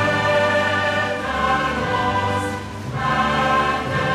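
Choir and orchestra music, held chords that change twice.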